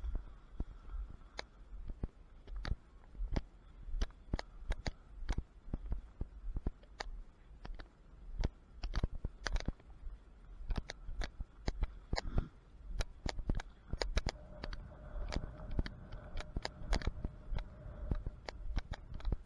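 Footsteps crunching through dry grass and weeds at a walking pace, about three steps every two seconds, with stalks brushing against the wearer.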